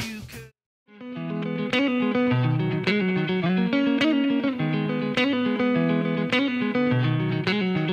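Background music: the previous song fades out, and after a brief silence a new track starts with picked electric guitar over a bass line, a light click marking roughly every second.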